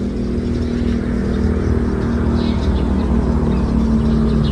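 A motor vehicle's engine running steadily, a low hum that slowly grows louder.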